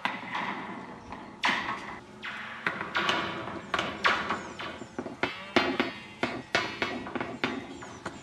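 Steel oilfield rodlines moving back and forth over wooden rodline supports and knocking against their upright steel guide pins. They make a run of irregular metallic clanks, roughly one to two a second, some with a short ring.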